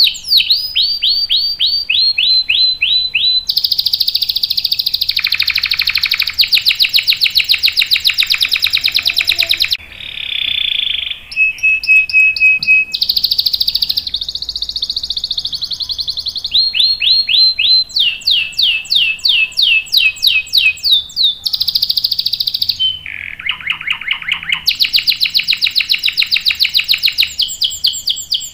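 Canary singing in long rolls: fast trills of rapidly repeated notes that switch to a new pattern every few seconds. There is a short break about ten seconds in and a brief held whistle just after.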